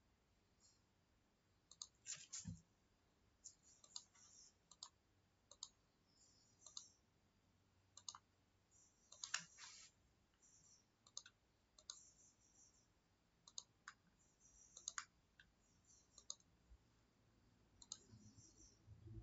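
Faint, irregular clicking of a computer mouse over near silence, a couple of dozen clicks spread unevenly through the stretch.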